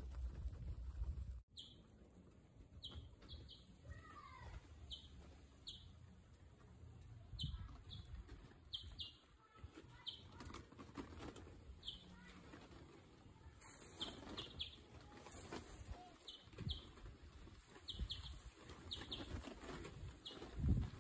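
Several guinea pigs chewing and tearing fresh grass, a soft, irregular crunching. Short high chirps recur throughout, and a low thump comes near the end.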